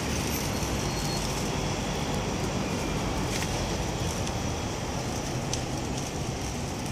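Steady city street ambience: a low traffic rumble with a light hiss over it, and a couple of faint ticks in the second half.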